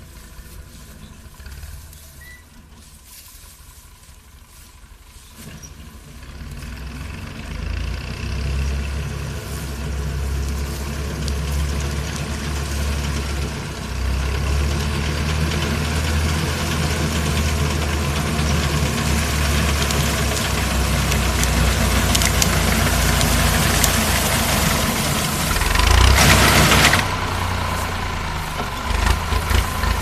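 Tractor engine driving a front-mounted wheat reaper, running steadily and growing louder as it comes closer through the standing wheat, with a brief louder rush near the end.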